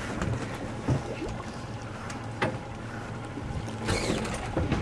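A boat's engine running steadily at sea, a low hum under wind and water noise, with a few short knocks.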